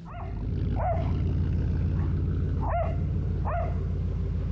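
Dog, likely a blue heeler, giving four short high yelps, each rising then falling in pitch. Underneath is a steady low rumble that fades in over the first half second and is louder than the yelps.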